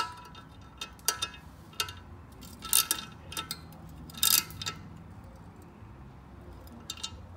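Hand ratchet on a socket extension tightening the nut on a caliper cover's mounting clip: irregular sharp metallic clicks, some in quick runs of ratchet clicks. The clicks pause after about five seconds, with a couple more near the end.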